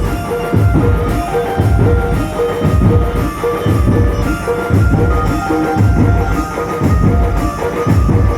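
A Chhattisgarhi dhumal band playing loudly: a heavy bass drum beat, about one and a half strokes a second, under a steady held melody line.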